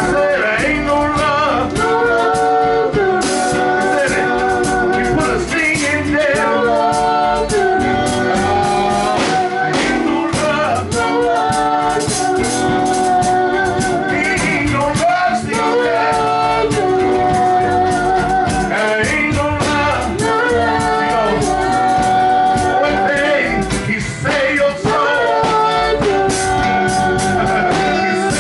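Male gospel group singing in harmony, led by a solo voice, over a live band of electric guitar, electric bass, drums and keyboard.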